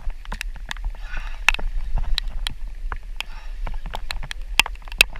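Wind buffeting the microphone in a steady low rumble, with sharp irregular taps and clicks, a few a second, over it.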